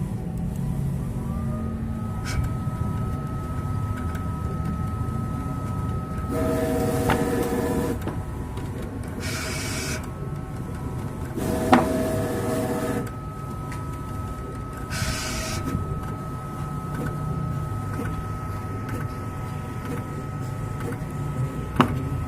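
Graptech vinyl cutting plotter cutting at its highest speed. Its drive motors whine in short fast runs over a steady mechanical hum, with a held whine that drops out and returns and a few sharp clicks. The motors are being pushed so hard that the uploader fears they could burn out.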